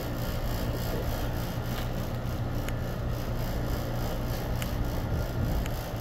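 Rooftop air-conditioning units running with a steady low hum, with a few faint light clicks over it.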